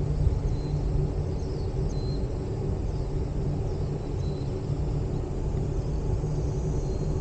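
Steady low rumble of a ropeway gondola cabin travelling along its cable, with a few faint high chirps over it.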